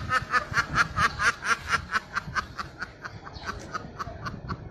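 A domestic duck giving a long run of rapid quacks, about five a second, that sound like a person laughing; the calls grow fainter after about two seconds.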